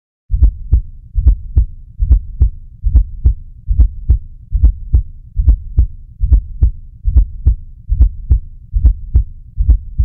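Heartbeat recorded through a digital stethoscope, a steady lub-dub rhythm a little over one beat a second, with a fourth heart sound (S4) just before each first sound, heard as "le-lub dub". S4 is always abnormal and is the sign of a stiff or hypertrophic ventricle that resists filling as the atrium contracts.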